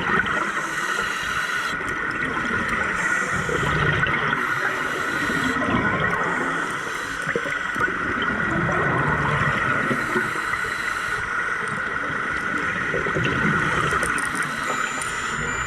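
Scuba regulator exhaust bubbles gurgling and rushing underwater, in long bursts every few seconds, over a steady high hum.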